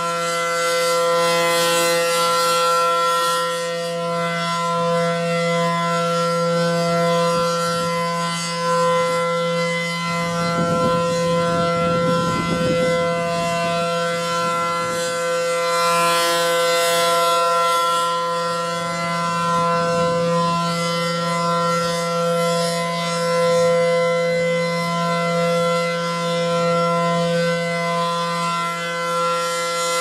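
ACA Allertor 125 rotating outdoor warning siren sounding its steady alert signal: a loud, unwavering chord of several tones. The level swells and fades gently as the horn turns.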